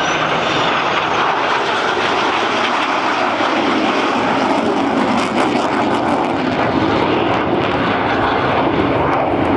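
Jet aircraft in formation flypast: an Avro Vulcan bomber with its four Olympus turbojets flying with four F-16 fighters, a loud, steady jet roar.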